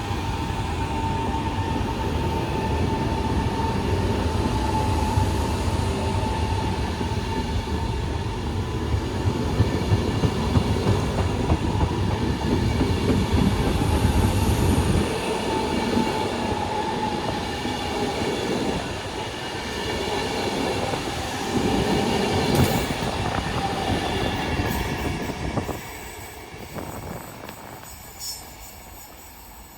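Electric train running through the station, with a dense wheel-on-rail rumble and a steady high whine, and rattling as the wheels cross the rail joints. The sound drops away sharply near the end as the train clears.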